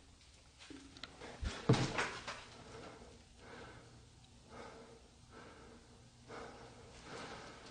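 Quiet footsteps in a debris-strewn corridor: a couple of knocks a second and a half to two seconds in, then soft scuffs about once a second.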